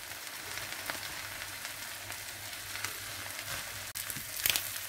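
Beaten eggs and fish with fried straw potatoes sizzling steadily in oil in a non-stick frying pan as the eggs begin to set, stirred with a spatula that scrapes against the pan a few times, most loudly near the end.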